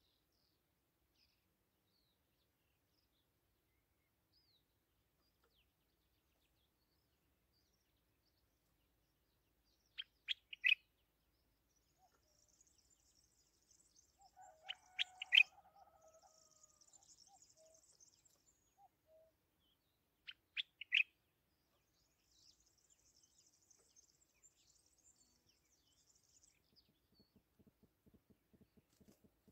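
Small songbird calling: a group of three sharp notes about ten seconds in and another near twenty-one seconds, with thin, high twittering between and after them. A faint low crackle comes in near the end.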